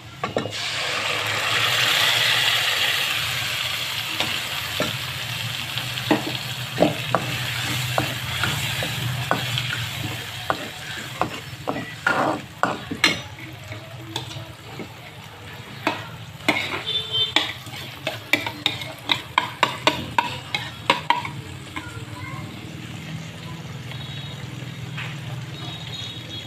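Batter poured into hot oil and fried garlic in a pan sizzles loudly at first, the sizzle fading over several seconds. A metal spatula then stirs and scrapes it, with many sharp clicks and taps against the pan, busiest in the middle and latter part.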